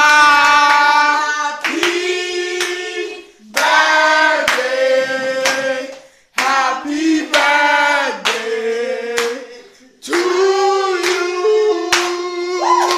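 Several people singing together in long held phrases, with scattered handclaps over and between the lines.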